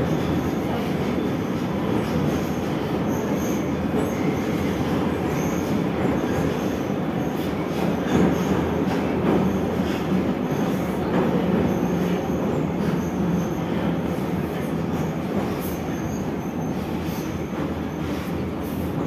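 Metro train running through a tunnel, heard from inside the passenger car: a steady rumble of wheels and running gear, with brief faint high wheel squeals now and then.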